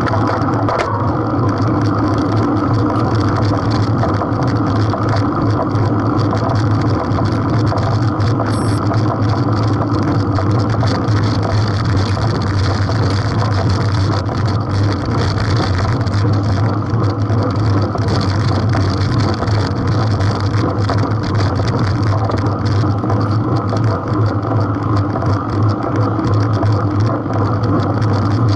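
Steady wind rush on the microphone of a bike-mounted action camera, mixed with the hum of road-bike tyres rolling on asphalt.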